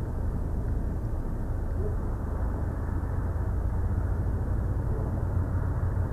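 Steady low rumbling background noise picked up by an outdoor nest-cam microphone, with no distinct events.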